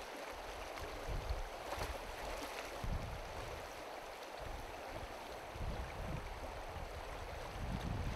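Shallow stony river running, a steady rush of water, with gusts of wind buffeting the microphone.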